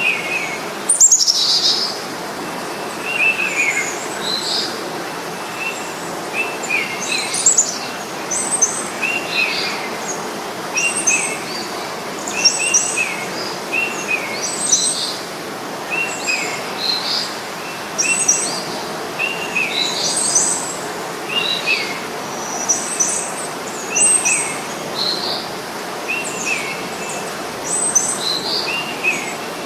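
Small birds chirping over and over in the open, short calls coming every second or two over a steady outdoor hiss. A louder falling call sounds about a second in.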